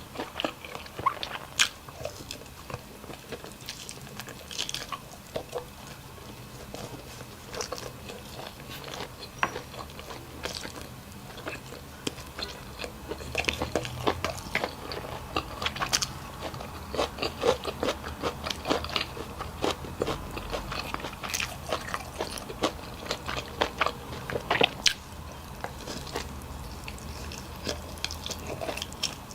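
Close-miked eating: a person biting and chewing, with irregular crunches and small wet mouth clicks, busiest around the middle.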